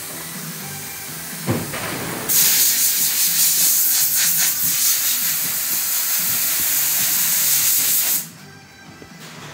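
A knock about one and a half seconds in, then a loud, steady hiss of compressed air that starts abruptly a moment later and cuts off suddenly about eight seconds in.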